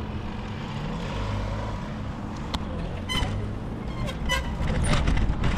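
Motor traffic on a busy road: a steady engine drone from passing cars and trucks. From about halfway in come a run of short sharp clicks and chirps, and the sound grows louder toward the end.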